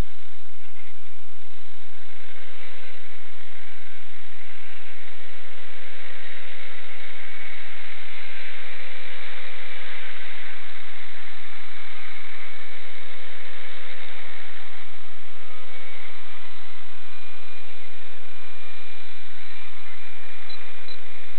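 The electric motor and rotor of an EXI-450 radio-controlled helicopter running steadily. It makes a continuous whine with a hum and higher tones that swell slightly about halfway through.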